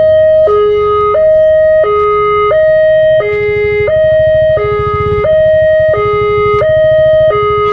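Railway level-crossing warning alarm on a LEN signal post, sounding a steady two-tone hi-lo, switching pitch about every two-thirds of a second, to warn of an approaching train. A low rumble runs underneath.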